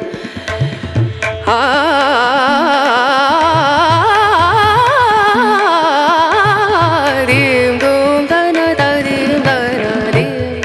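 Background music: a long melody that slides and wavers in pitch, with drum strokes at the start and again near the end.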